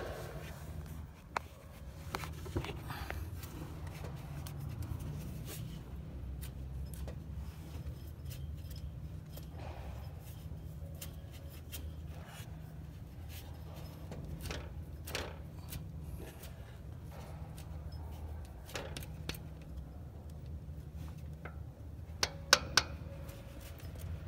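Scattered light clicks and clinks of metal tools and engine parts being handled, over a low steady hum, with a few sharper clicks near the end.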